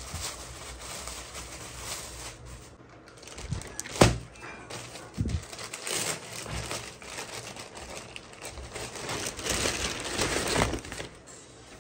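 Clear plastic packaging bags crinkling and rustling as new clothes are pulled out of them, with one sharp knock about four seconds in.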